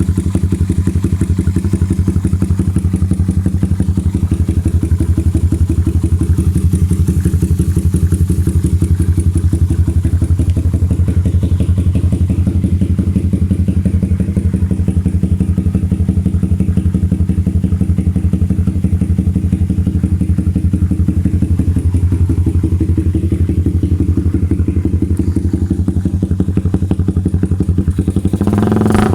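Suzuki Raider 150's single-cylinder four-stroke engine, stock, idling steadily through an aftermarket Vmax conical racing exhaust, giving an even, deep exhaust beat.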